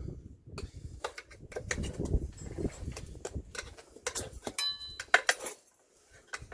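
Metal tire spoons clicking and knocking against a dirt bike wheel rim while the tire is levered off, with a brief high squeak about four and a half seconds in.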